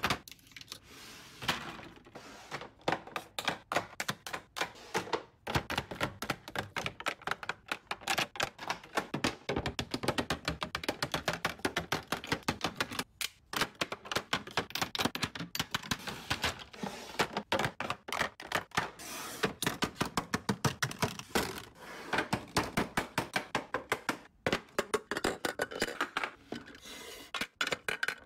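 Makeup containers (glass foundation bottles, plastic caps, sticks and compacts) clicking and clacking as they are picked up and set into clear plastic organizer bins: a rapid, uneven run of small taps and knocks, several a second, with a few brief pauses.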